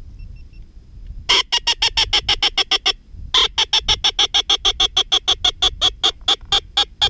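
Duck call blown in two fast runs of short, sharp notes, about eight a second, with a brief break for breath about three seconds in.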